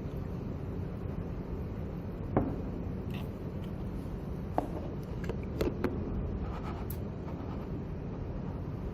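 A few light clicks and knocks from handling the plastic aroma diffuser and its cover while essential oil is added, over a steady low background hum. The loudest click comes about two and a half seconds in.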